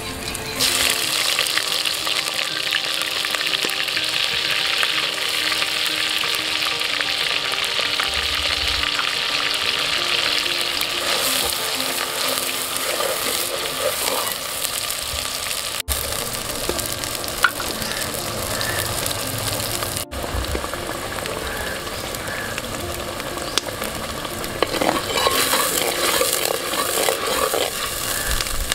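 Onion paste frying in hot oil in a clay pot. It sizzles hard as it goes into the oil about half a second in, then the sizzle slowly eases, with a spoon stirring and scraping through it, more busily near the end.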